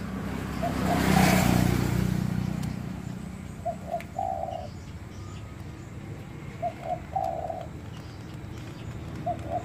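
A dove cooing: a phrase of two short notes and a longer held note, repeated about every three seconds, over a steady low hum. A broad rush of noise swells and fades in the first two seconds.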